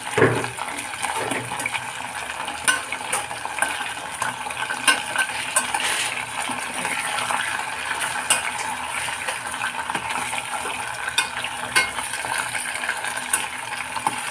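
Chicken pieces sizzling in oil in a stainless steel pot while a metal spoon turns them over, with scattered clinks and scrapes of the spoon against the pot and a louder knock at the very start.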